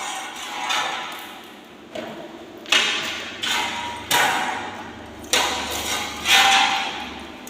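A series of about six sharp knocks or blows, roughly one a second, each dying away over about a second.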